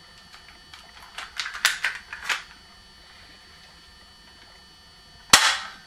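A gun being handled, with a run of quick mechanical clicks, then a single sharp shot near the end.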